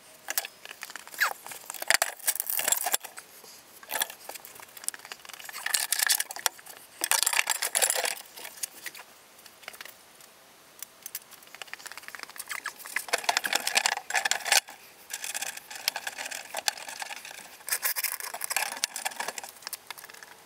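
Irregular scraping, rustling and clicking from handling a plastic fuel tank as it is worked up into place under a vehicle, with sharp clicks among the scrapes and a quieter stretch about halfway through.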